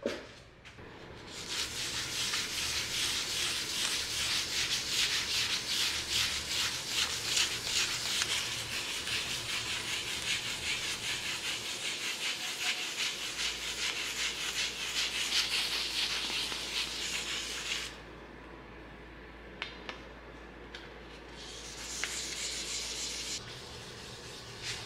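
Fine 2000-grit sandpaper rubbed by hand in quick back-and-forth strokes over the 2K clear coat of a bicycle frame tube: wet sanding to smooth out orange peel. The sanding stops about three-quarters of the way through, then resumes briefly near the end.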